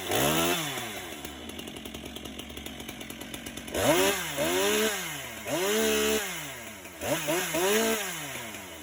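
STIHL MS 462 two-stroke chainsaw idling, then revved up and let back down to idle several times, its pitch rising and falling with each blip of the throttle.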